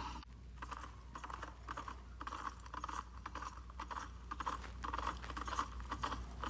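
Clip-clop of horse hooves at a walk: a steady train of light hoofbeats, about three to four a second.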